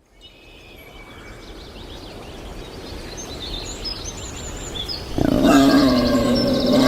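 Birds chirping over an outdoor background that fades in from silence. About five seconds in, a loud, steady, low-pitched sound with many overtones starts and holds.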